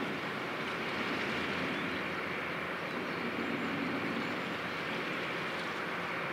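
Steady, even rushing noise with a faint low hum underneath and no distinct events.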